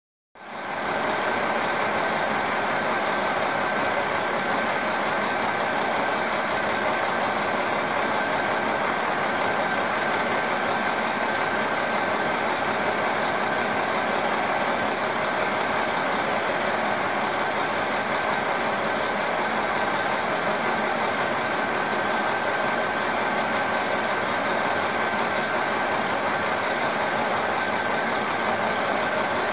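Diesel engine of a JR Hokkaido KiHa 40 series railcar idling, a steady, unchanging drone with a thin high whine on top.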